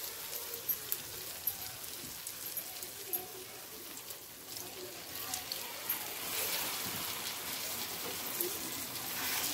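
Stuffed brinjal curry sizzling and spitting with small crackles in a hot oiled pan as it is stirred with a wooden spatula. A little over halfway through, water is poured in and the sizzle turns louder and fuller.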